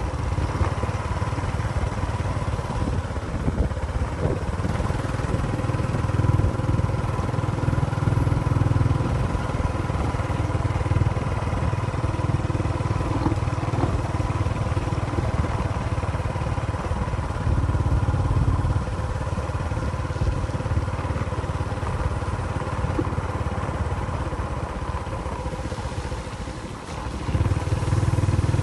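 A motor running steadily, with a low rumble that swells and eases every few seconds and a steady hum above it.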